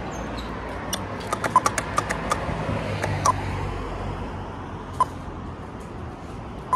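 Pedestrian crossing push-button's locator tone: a short tick that repeats about every 1.7 seconds while the crossing is waiting, the sound that guides people to the button. A quick run of sharper clicks comes between one and two and a half seconds in.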